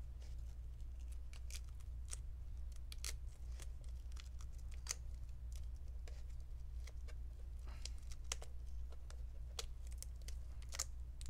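Scattered small clicks and crinkles of adhesive tape being peeled off a laptop LCD's display cable connector and the connector being handled with gloved fingers, over a steady low hum.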